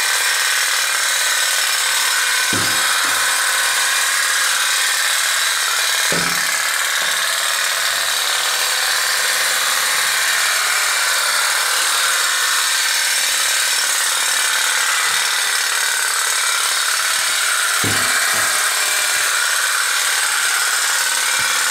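Tin pop-pop boat's candle-heated steam boiler popping so fast that it makes a steady, loud buzz. A few short low knocks come about two and a half, six and eighteen seconds in.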